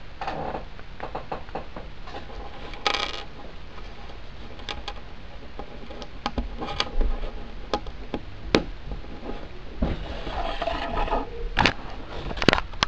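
Small plastic LEGO pieces being handled on a hard tabletop: scattered sharp clicks and taps of brick on brick and brick on table, with a few short scraping rustles.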